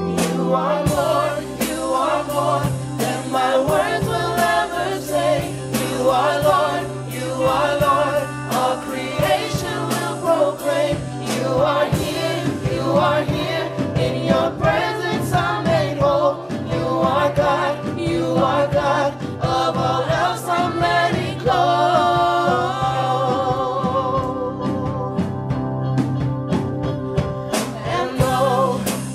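A group of young voices singing a worship song together into microphones, backed by a live band with a drum kit keeping a steady beat.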